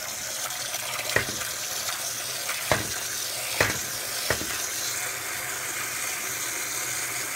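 Water from the disconnected output line of a reverse-osmosis unit's carbon block stage splashing steadily into a plastic tub, flushing carbon dust out of new carbon filters before they go into service. A few sharp clicks of hands handling the plastic filter housings and mounting bracket come through about one, two and a half, three and a half, and four and a half seconds in.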